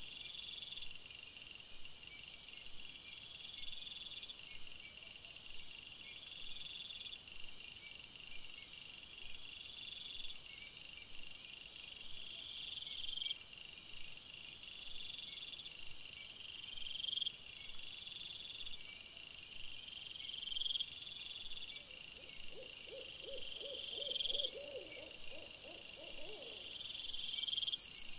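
Night-time insect chorus: a high, rhythmic chirping that repeats about once a second, with a short run of lower, rapid pulsing calls a little before the end.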